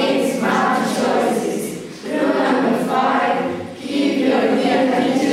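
A class of young teenagers chanting in unison, reciting classroom rules in three phrases of about two seconds each.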